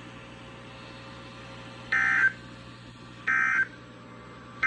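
Emergency Alert System end-of-message data bursts: two short, buzzy digital tone bursts about 1.3 seconds apart, with a third starting at the very end. They are sounded over a faint steady hum from the radio and signal that the alert broadcast has ended.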